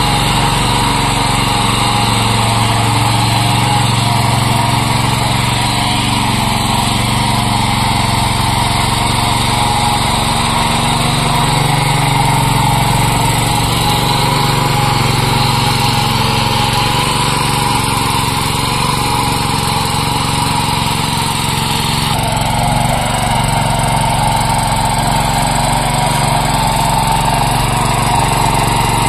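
Small single-cylinder engine of a 7 hp mini power tiller running steadily, its note shifting slightly about two-thirds of the way through.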